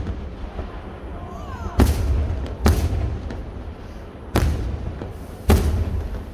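Fireworks display: four aerial shells bursting as loud bangs, each followed by a low rolling rumble.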